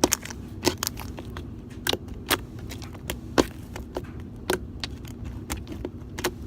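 Jiggly glue-and-borax slime squeezed and worked by hand, giving irregular sharp clicks and pops, about one or two a second.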